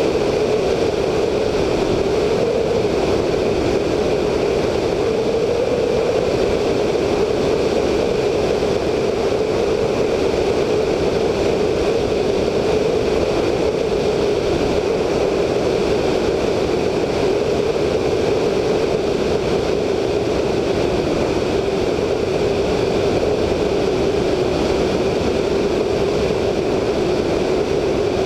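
The VL Viima II biplane's Siemens-Halske Sh 14A seven-cylinder radial engine running steadily in cruise, with its propeller. Heavy airflow rushes over the wingtip-mounted microphone as one even, unchanging drone.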